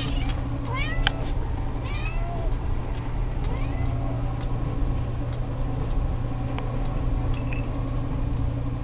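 A cat giving a series of short, high mews, clustered in the first few seconds with a faint one near the end. A single sharp click comes about a second in, over a steady low hum.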